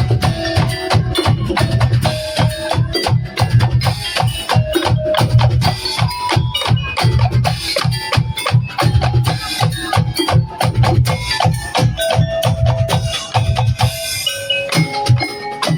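Tongtek percussion ensemble playing: rapid clattering strokes on bamboo kentongan slit drums over a steady, heavy low drum beat, with short tuned melodic notes on top.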